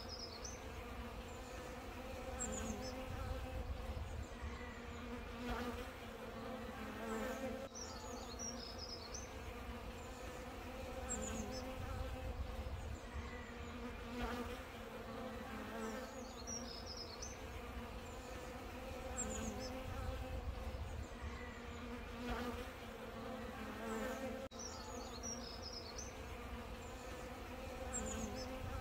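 Honeybees buzzing as they cluster at a sugar-water feeder jar: a steady, unbroken hum at a constant pitch, the wingbeats of worker bees hovering and landing.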